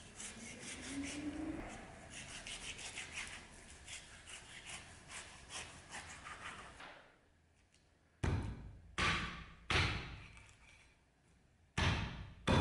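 A kitchen knife saws through a slab of pork fat and skin in quick, faint rasping strokes. After a pause, a heavy butcher's axe chops down through the pork into a wooden chopping stump four times, each chop a sharp, heavy thud.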